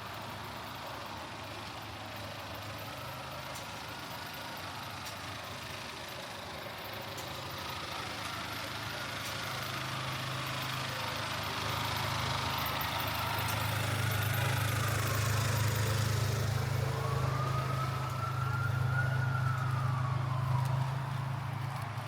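Midtown street traffic with a heavy vehicle's engine running close by, growing louder about halfway through. A siren wails slowly up and down in the distance, its tone getting clearer toward the end.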